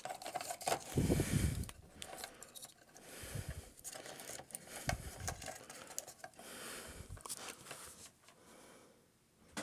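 Hands handling and posing a Kotobukiya Mega Man X plastic model kit figure: scattered light clicks, rubs and scrapes of plastic parts and fingers, with a few soft low thumps.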